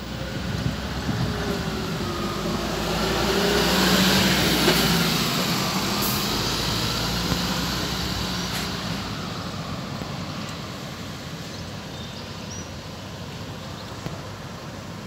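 Road traffic passing: a heavy vehicle runs by, loudest about four seconds in, then fades to a steady traffic hum.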